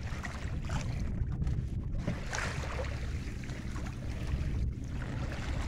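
Sailing canoe under way in choppy water: waves slapping and splashing against the hull over a steady low rumble of wind on the microphone.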